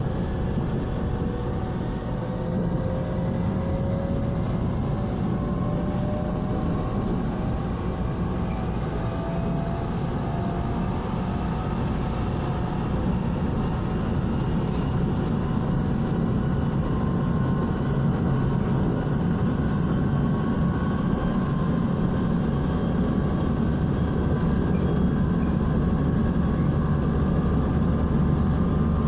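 EMU700 electric commuter train heard from inside the passenger car while pulling away and gathering speed: the traction motors' whine climbs slowly in pitch over a steady rumble of wheels on rail, growing a little louder.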